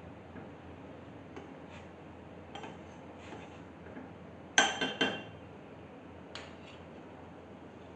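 A spoon stirring in a pan of simmering kadha, clinking against the pan now and then, with a louder run of several clinks about halfway through.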